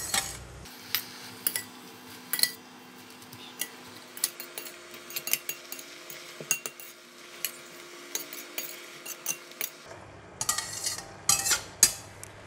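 Metal slotted spatula stirring water spinach in a stainless steel wok, clinking and scraping against the pan in irregular taps. The clatter gets busier near the end.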